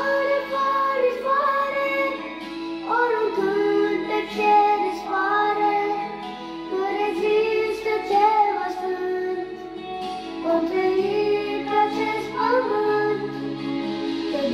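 A young boy singing a melody into a microphone over a backing music track, in phrases of a few seconds each with short breaks between them.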